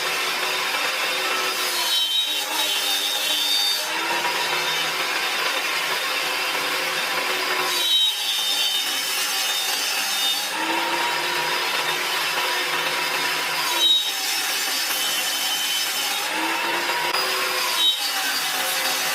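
Power tool cutting into wood, running steadily with its motor pitch sagging and recovering as it takes the load. There are brief breaks about every four to six seconds.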